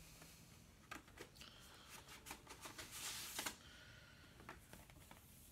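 Faint rustling and light taps of paper and cardboard as an LP in its white paper inner sleeve is slid out of the album jacket, with a longer sliding rustle about three seconds in.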